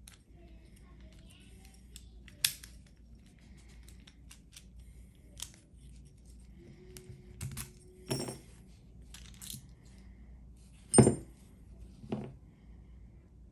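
Small metal lock parts and tools clicking and clinking as a padlock is handled on a hard surface: five or so separate sharp clacks spread over several seconds, the loudest one about eleven seconds in.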